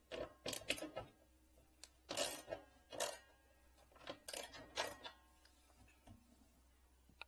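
Irregular metallic clinks and clicks of a 13 mm spanner tightening the screws of a metal TV wall-mount bracket, each with a brief ring.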